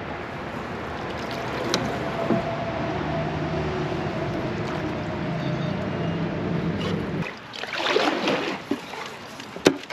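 Canoe on the canal: a steady rushing of water for about seven seconds, then knocks and scrapes against the canoe, with one sharp knock near the end.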